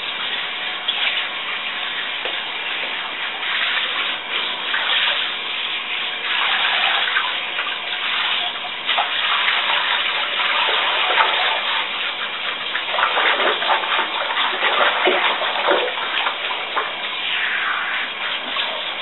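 Handheld shower sprayer running, water spraying onto a wet dog's coat and splashing into the bathtub. The sound shifts as the spray is moved over the dog.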